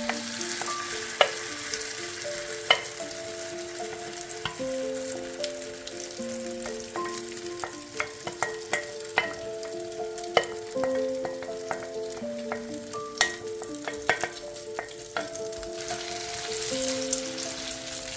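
Oat, egg and cheese mixture sizzling in olive oil in a frying pan, with scattered sharp ticks. Gentle melodic background music plays over it.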